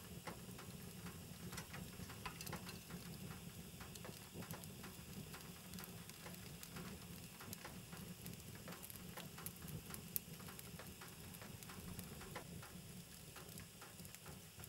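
Wood fire crackling, with many small irregular pops and ticks over a low steady background.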